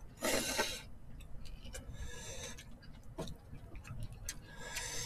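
A short noodle slurp of thin somen noodles just after the start, followed by scattered light clicks of metal chopsticks against bowls and softer eating noises.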